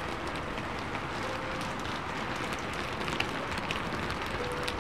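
Steady rain falling, with scattered drops ticking now and then and faint held notes of classical music underneath.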